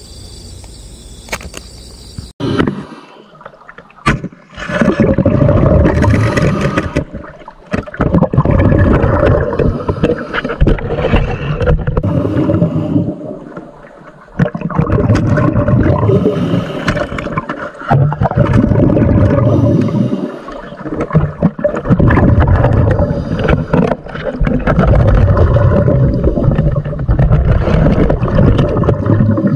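Loud churning, gurgling water noise in long stretches of several seconds, broken by short pauses, after a quiet start and a couple of knocks.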